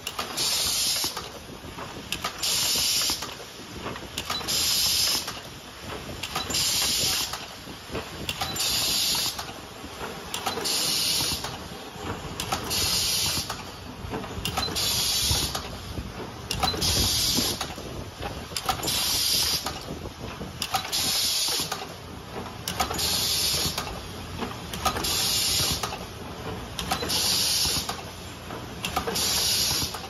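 Rotary perfume filling and crimping machine running, with a sharp hiss of released air about every two seconds as it cycles, each lasting about a second, over a steady mechanical hum and light clicks.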